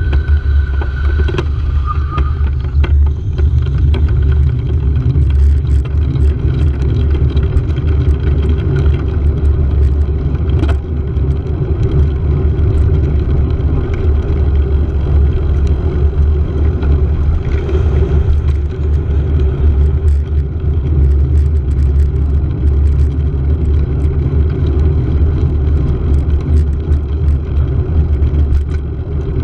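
Steady low rumble of wind and road noise on a moving handlebar-mounted camera. Near the start there is a thin whine that steps down in pitch about two seconds in.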